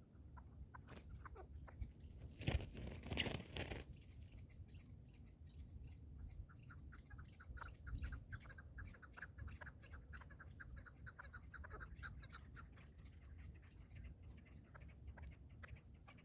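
Partridge calling in a fast, irregular run of short clucking notes, faint and continuing over most of the stretch. A brief burst of rustling noise, the loudest thing here, comes a couple of seconds in.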